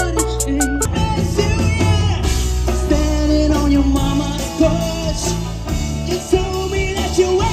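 Music: a song with a singer over a steady drum beat, starting about a second in after a brief break from the previous track.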